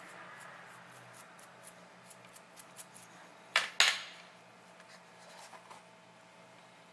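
Metal tweezers clicking and ticking lightly as soil is knocked off them, with two sharp clicks in quick succession about three and a half seconds in.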